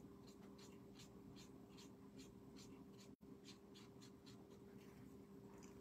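Faint, quick scratching of a marker tip on paper as a small die-cut piece is coloured in, about three to four strokes a second.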